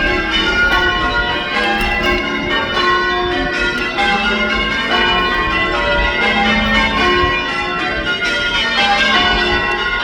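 Church bells ringing, several bells struck in quick succession so that their tones overlap and ring on.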